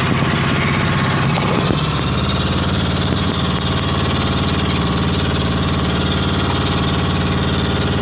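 Small fishing boat's engine running steadily at a constant speed.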